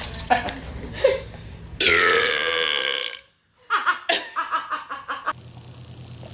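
A person's long, loud burp lasting over a second, its pitch dropping at the start, followed after a short pause by a choppy run of short sounds.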